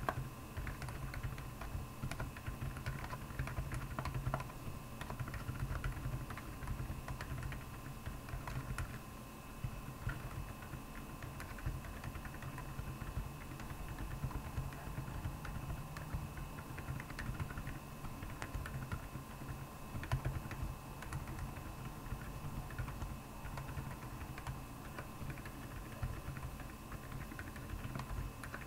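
Steady, continuous typing on a Royal Kludge R75 mechanical keyboard with Akko Penguin silent tactile switches, over a steady background hum.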